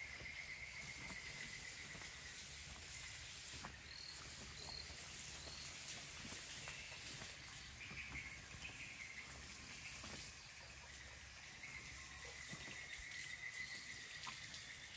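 Faint outdoor ambience: a steady, wavering insect trill, with a few short chirps and scattered faint ticks.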